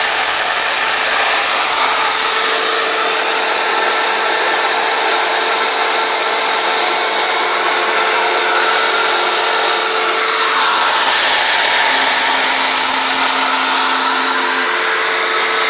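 CNC router running: the spindle motor gives a loud, steady high whine over the rush of dust-collection suction. A lower steady tone joins for a few seconds about twelve seconds in.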